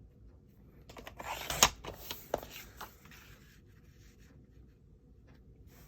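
Paper trimmer cutting card stock: a scraping slide of the blade about a second in, with one sharp click, then a couple of lighter clicks.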